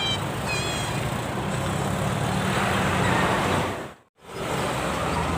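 Steady traffic noise from vehicles passing on a toll road, one swelling louder as it goes by about three seconds in. A few faint high warbling tones sound at the very start, and near four seconds the sound cuts out abruptly for a moment before the traffic noise returns.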